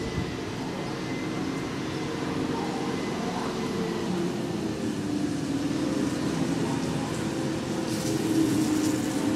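A steady low mechanical hum made of several fixed low tones over a general background rush, growing a little louder in the second half.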